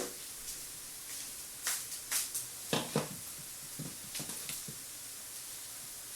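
A cluster of small clicks and knocks, about seven between two and four and a half seconds in, over a steady faint hiss: hardware being handled while fitting parts into a PC case.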